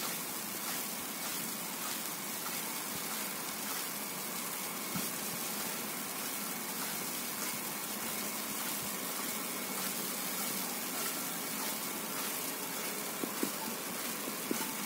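Steady, even hiss of a wet, snowy city street: falling wet snow, slush and damp road noise blended together, with a few faint ticks near the end.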